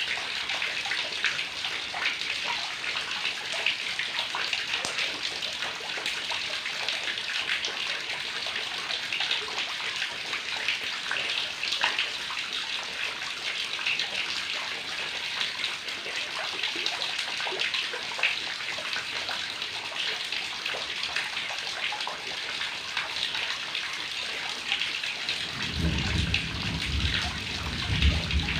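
Heavy rain falling steadily: a dense hiss of countless drop impacts. A low rumble comes in near the end.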